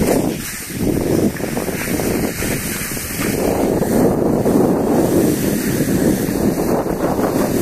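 Loud wind buffeting the microphone of a skier's camera on the move, with the steady hiss of skis sliding over snow, swelling and easing.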